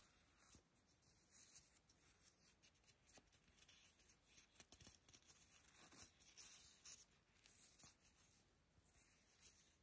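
Faint rustling of paper hang tags and fabric care labels being handled and flipped through by hand, with small scattered clicks.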